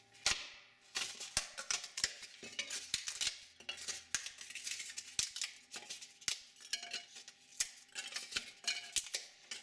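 A styrofoam cup being broken up by hand: a run of irregular sharp cracks and snaps with crackling in between as the foam splits into small pieces.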